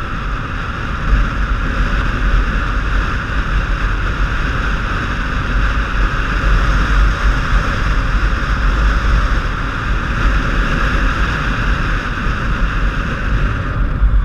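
Wind rushing over a helmet-mounted microphone, with the steady drone of a touring motorcycle's engine and tyre noise while riding along at road speed.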